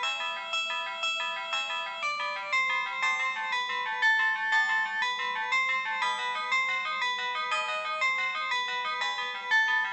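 Siemens MC60 mobile phone playing a polyphonic MIDI ringtone: a steady, quick run of synthesized notes, several at once, thin and without bass.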